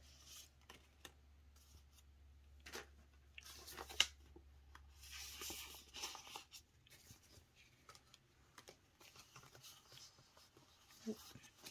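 Faint handling sounds of a clear plastic cash envelope, a paper placeholder card and Canadian polymer banknotes: scattered soft clicks and rustles, with a sharp click about four seconds in and a brief rustle just after.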